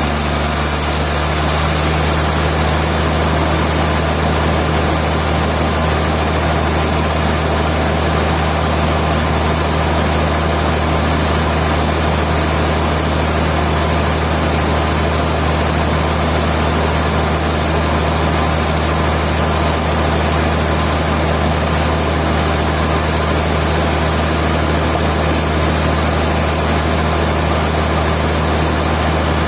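Sawmill machinery running steadily: a constant low engine hum under an even noise, with no change in pitch or level.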